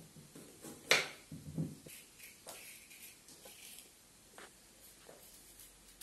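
A kitchen knife knocks sharply once on a wooden cutting board about a second in, followed by faint scratchy scraping and a few light ticks as the knife scrapes the skin off a carrot held in the hand.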